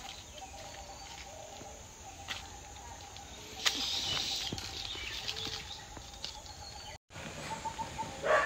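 Quiet outdoor background with a faint, steady, pulsing chirp and a few small clicks. The sound drops out briefly about seven seconds in, and a louder sound comes in right at the end.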